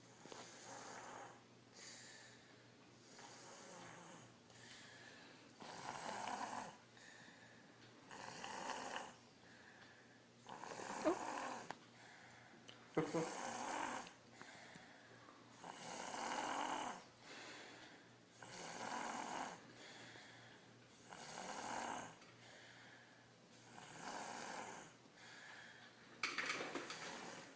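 Three-year-old child snoring in deep sleep, snoring like an adult, a rasping snore with each breath about every two and a half seconds.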